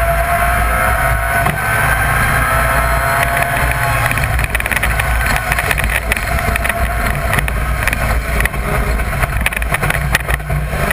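BMW Compact rally car's engine running hard under load, heard inside the cabin, its pitch rising steadily over the first couple of seconds. From about four seconds in it turns rougher, with many short knocks and rattles from the car and road over the engine note.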